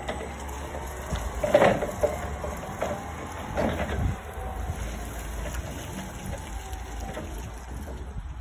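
Hyster J1.5XNT three-wheel electric forklift driving and turning, its electric drive motor giving a faint whine over a low hum, with a few clunks and rattles from the truck, the loudest about one and a half seconds in.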